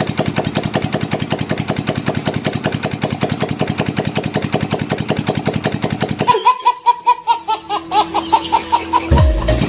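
Freshly refreshed Yamaha Mio Sporty four-stroke scooter engine, bored to 59 mm, running with a rapid, even pulse, which the mechanic signals is running well. About six seconds in it cuts off abruptly and a baby laughs in high, rising giggles, with a deep thud near the end.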